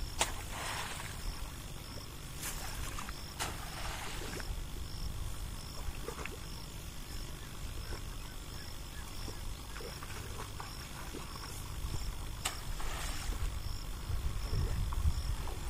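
Bundles of rice seedlings splashing into a flooded paddy as they are tossed in, several times, over a steady low rumble. A faint high chirp repeats evenly throughout.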